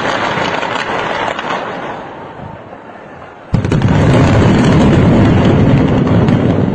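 Controlled demolition of a high-rise tower with explosives: a rapid crackle of many charges firing in sequence that fades over a couple of seconds, then, about three and a half seconds in, a sudden loud deep rumble as the building comes down.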